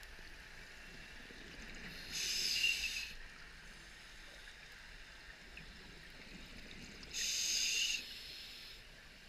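Scuba diver breathing through a regulator underwater: two bursts of exhaled bubbles, about two seconds in and about seven seconds in, each lasting about a second, over a faint steady hiss.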